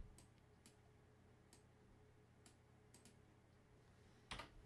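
Near silence with a few faint, short computer-mouse clicks, and a slightly louder click near the end.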